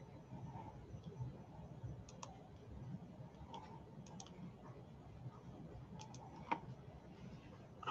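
Scattered faint clicks over quiet room tone, several coming in quick pairs, the sharpest one about six and a half seconds in.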